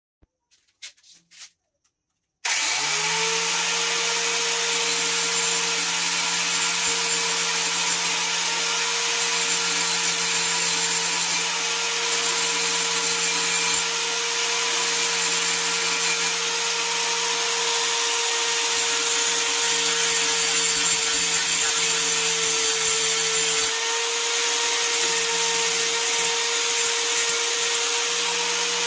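An electric motor spins up about two and a half seconds in and then runs steadily with a steady hum and a loud, even hissing rush.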